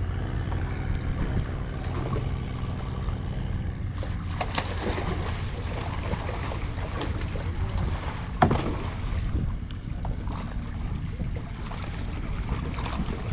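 Water splashing as fish thrash in a net being hauled up in a fish-farm cage, picking up about four seconds in with a sharp slap about eight seconds in, over a steady low rumble.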